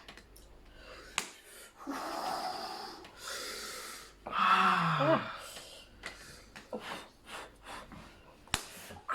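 A person drawing two long hissing breaths, then a moan that falls in pitch, with heavy breathing after it. A sharp click comes about a second in and another near the end.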